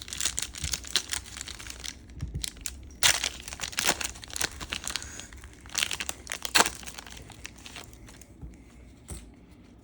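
A trading-card pack wrapper being torn open and crinkled by hand, with sharp tearing bursts about three seconds in and again around six seconds in, then quieter rustling.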